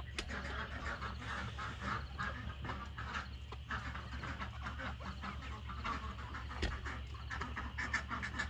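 A flock of backyard hens and ducks calling, many short calls overlapping one another, over a steady low hum.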